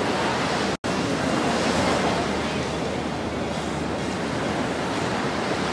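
Steady rush of ocean surf and wind on an open beach, briefly cutting out for an instant just under a second in.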